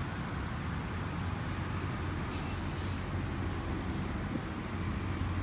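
Steady low rumble of motor vehicles, with a few faint ticks over it.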